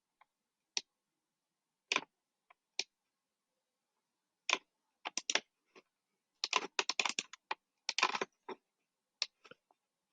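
Typing on a computer keyboard: a few single key or mouse clicks, then two quick runs of keystrokes a little over four and six seconds in.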